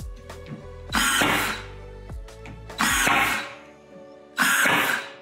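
Ryobi AirStrike cordless brad nailer firing three times, about one and a half to two seconds apart, each shot a sharp half-second burst as it drives brads into particleboard panels. Background music plays underneath.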